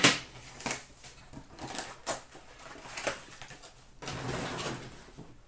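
A metal card tin set down with a sharp knock, followed by scattered light clicks and the rustle of packaging being handled.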